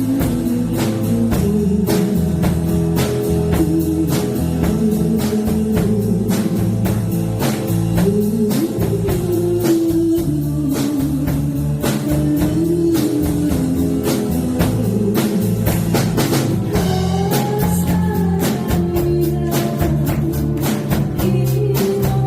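Live band playing an instrumental break: a guitar plays a lead melody with pitch bends over a steady drum-kit beat and bass.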